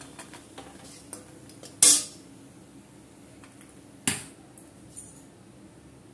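Metal spatula scraping and clinking against a steel kadai and bowl as fried bori are lifted out of the oil. There are light clicks at first, then two loud metallic clanks, about two seconds and four seconds in; the second comes as the spatula is set down in the empty pan.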